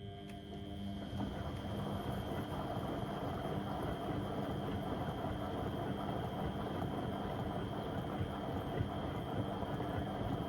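Beko WM74135 washing machine starting up suddenly and building over about a second to a steady running sound, with a low motor hum and a thin high whine over a noisy wash.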